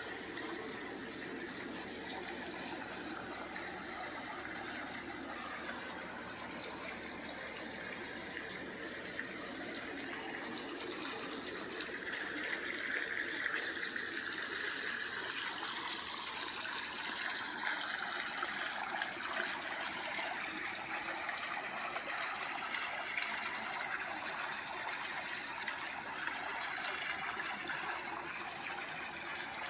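Pool water splashing and trickling steadily as the filter's return jet stirs the surface of an above-ground pool, a little louder from about twelve seconds in.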